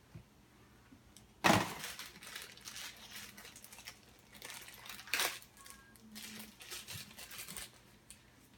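Cardboard blind-box packaging being ripped open, with a sharp tear about a second and a half in and another a little after five seconds, then softer crinkling of the packaging.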